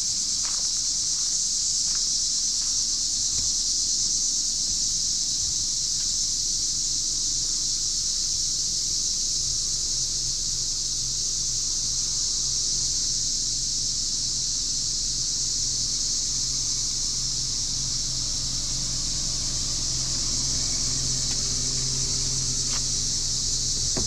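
Steady, unbroken high-pitched insect chorus of evening crickets and katydids.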